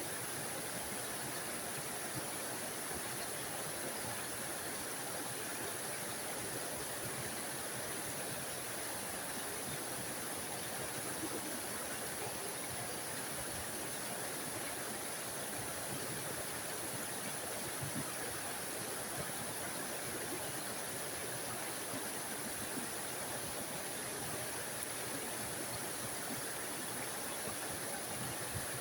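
A small forest waterfall running, a steady rush of falling water.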